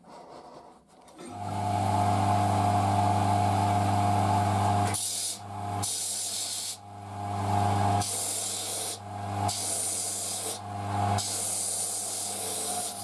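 Bench disc sander starts up about a second in and runs with a steady hum. From about halfway, a wooden knife handle is pressed against the spinning disc in about five short sanding passes, each a rough hiss that comes and goes as the handle is shaped.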